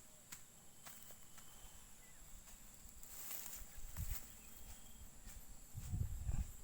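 Faint countryside ambience with a steady high insect drone. Low rumbling thuds come about four seconds in and again near the end.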